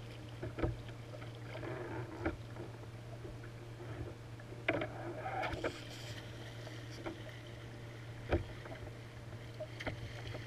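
Water slapping and sloshing against a plastic kayak hull, with a steady low hum underneath. Several sharp knocks come at uneven intervals, the loudest near the end.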